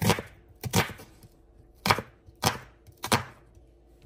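A kitchen knife chopping vegetables on a cutting board: five separate sharp chops at an uneven pace, roughly one every half second to second.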